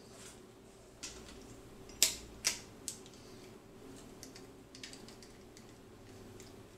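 Chrome metal parts of a Pearl S930 snare stand being handled and fitted together, clicking and clanking. There is a click about a second in, then two sharp clicks half a second apart about two seconds in, and scattered lighter ticks after.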